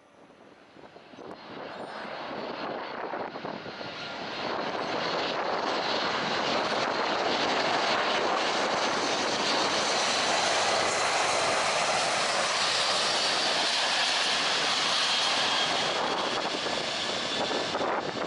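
Jet aircraft engines, growing louder over the first few seconds as the aircraft approaches, then loud and steady with a high whine.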